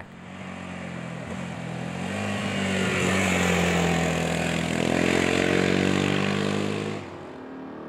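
Big single-cylinder Yamaha Ténéré adventure motorcycle engine running at a steady pace through a bend. The engine note grows louder about two seconds in, holds, and drops away near the end.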